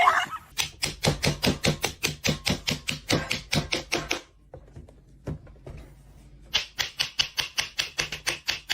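Rapid, even tapping, about six taps a second, in two runs of about three seconds with a short pause between.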